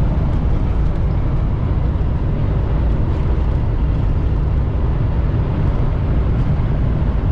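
Semi-truck cruising on the highway: steady low engine drone and road rumble heard inside the cab.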